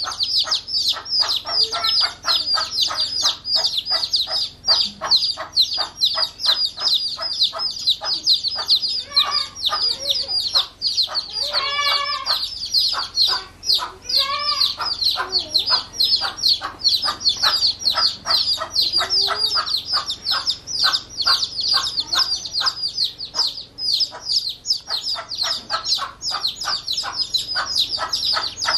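Day-old chicks peeping loudly and without a break: many high, downward-sliding peeps overlapping. Beneath them a mother hen clucks rapidly and evenly, calling the chicks to her, with two longer, drawn-out calls about midway.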